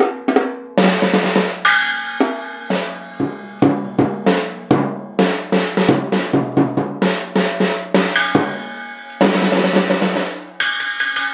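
A Mendini by Cecilio three-piece children's drum set is played with drumsticks: quick, uneven runs of hits on the small toms, each with a short ringing tone, broken up by several cymbal crashes that ring on and fade.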